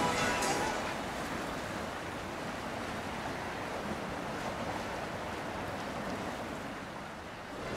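Steady rush of water and wind around boats moving on the river, with no clear engine note.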